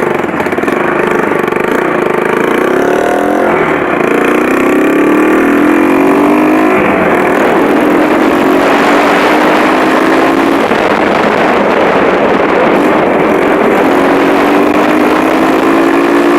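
Motorcycle engine running loud and accelerating up through the gears: the pitch climbs, drops back at each gear change, and climbs again, four times over.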